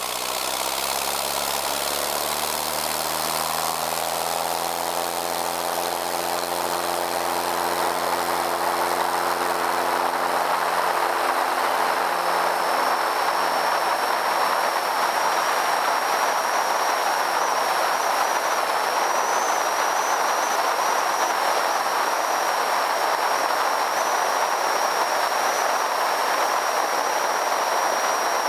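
Zenith CH 650's UL Power UL360iS four-cylinder engine and propeller throttling up for take-off, the engine note rising in pitch over the first ten seconds or so. A steady rush of wind over the wingtip camera builds as the plane gathers speed and climbs out, and drowns the engine. A thin high whistle joins about twelve seconds in.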